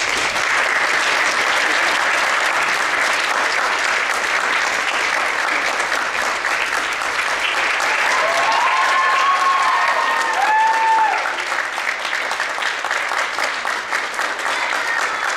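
Theatre audience applauding steadily, starting as the music ends. A few voices call out cheers about eight to eleven seconds in.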